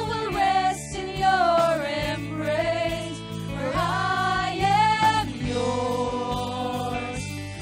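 Live worship band: a woman's lead vocal with backing singers over electric guitar, bass and drums, singing the lines "my soul will rest in your embrace, for I am yours and you are mine" in long held notes with vibrato.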